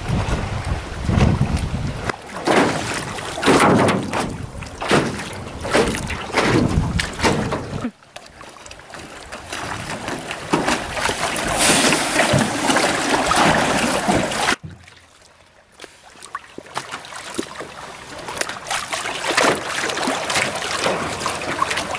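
Wind buffeting the microphone over splashing lake water from a small boat, coming in uneven gusts. The sound drops off suddenly twice, with a brief quieter stretch about fifteen seconds in before the wind and water noise return.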